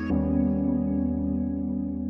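Background music: soft sustained keyboard chords, changing chord just after the start.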